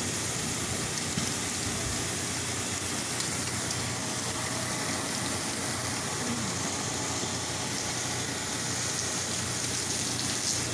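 Pressure washer spraying water against a house, a steady hiss of spray over the low, even hum of its engine.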